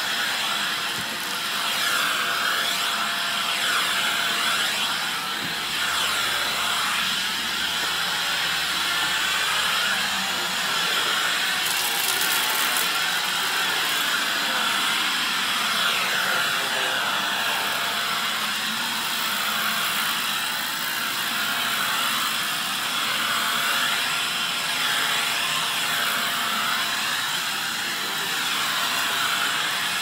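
Canister vacuum cleaner running steadily while its floor nozzle is pushed over a gritty mat, the motor's pitch wavering as the nozzle moves, with crackling and rattling of grit and debris being sucked up the hose.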